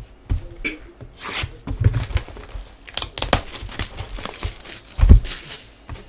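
Plastic wrapping being torn and crinkled off a sealed Donruss Soccer trading-card hobby box, in irregular rustles and rips. There is a louder thump about five seconds in as the box is handled on the table.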